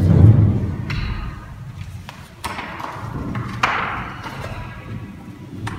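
A dull thump at the start, then paper rustling as a loose sheet and the pages of a book are handled and turned, with two louder page swishes around the middle.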